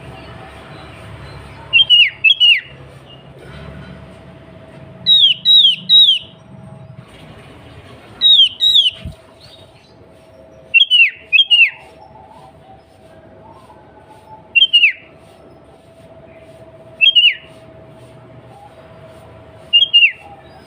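Sooty-headed bulbul calling: short, sharply falling whistled notes in groups of two or three, repeated every two to three seconds.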